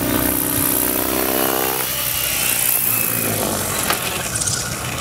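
Electric RC helicopter's motor and rotor whine, which stops about two seconds in. A rushing blade noise follows, with a few sharp ticks near the end as the helicopter settles on the runway during an autorotation landing.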